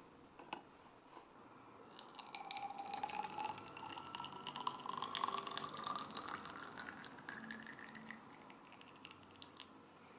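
Water poured from a kettle into the narrow cylindrical tank of a Wacaco Kompresso hand espresso maker, starting about two seconds in. The pouring note rises steadily in pitch as the tank fills, with a fine spattering crackle over it, and fades out near the end.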